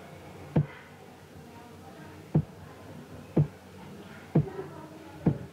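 A series of short, dull knocks, five in all, about a second apart, over faint background noise.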